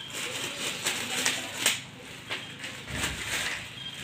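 Thin plastic bag crinkling and rustling as a set of kitchen spoons inside it is handled and pulled out, with a few sharp clicks scattered through it.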